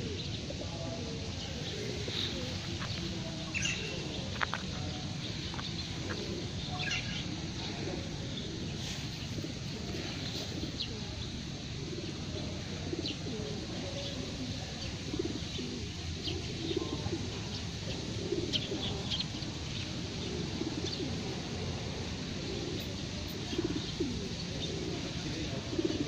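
A flock of feral pigeons cooing continuously in overlapping low, wavering calls, with short high bird chirps scattered through it.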